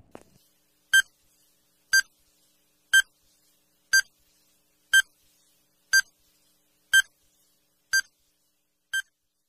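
Countdown timer sound effect beeping once a second: nine short, high beeps, the last two a little softer.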